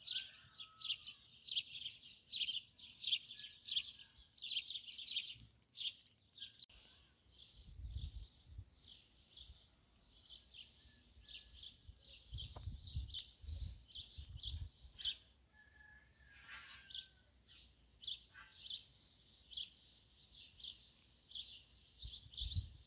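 Small songbirds chirping: many quick, high chirps, coming thick for the first few seconds, then more scattered. A few low rumbles come and go in the middle.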